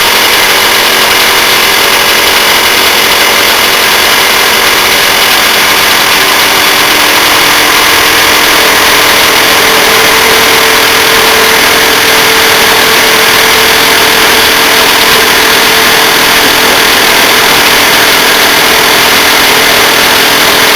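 Loud, steady machinery running with a strong hiss, and a steady tone that joins about eight seconds in.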